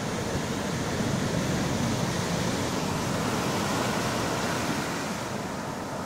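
Gentle Black Sea waves breaking and surf washing up the shore, a steady rush of water that swells about a second in and eases off near the end.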